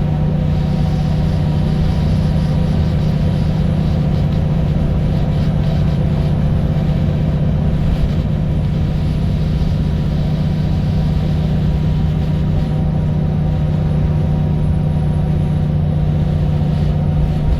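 Diesel engine of a VDL SB200 Wright Pulsar 2 single-deck bus running at a steady, unchanging pitch, heard from inside the bus along with road noise.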